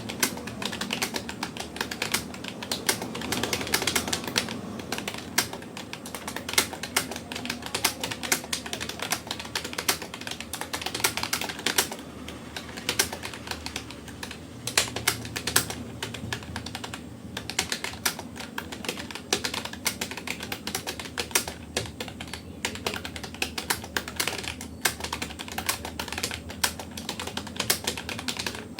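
Fast, continuous touch typing on a Rapoo computer keyboard: a dense, uneven patter of key clicks with no pauses.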